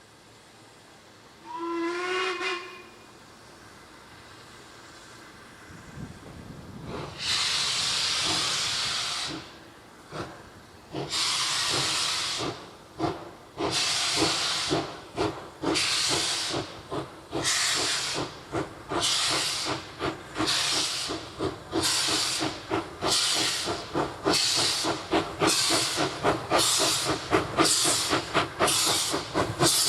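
Steam locomotive, an Ivatt 2MT 2-6-2T tank engine, giving a short whistle, then starting away: its exhaust beats begin slow and drawn-out and quicken steadily as it gathers speed.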